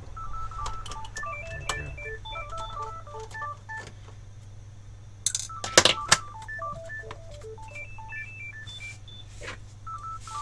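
Telephone ringing with an electronic melody of short stepped notes, repeating and unanswered. About five seconds in, a few sharp clicks come over it, the loudest sounds here. A steady low hum lies underneath.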